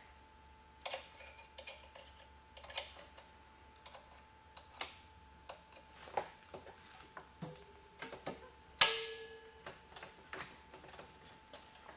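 Scattered metallic clicks and clinks as a short exhaust spring is stretched and hooked between a Polaris Pro snowmobile's HPS silencer and the chassis spring hook. The loudest is a sharp click with a short ring about nine seconds in.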